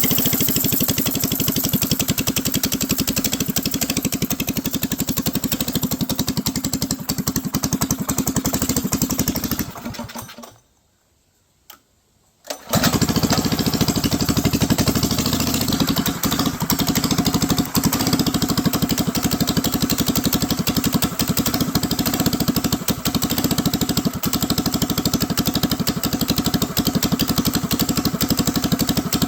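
Mini bike's small single-cylinder engine running steadily, then dying away about ten seconds in; after a couple of seconds of quiet it is running again and keeps running steadily.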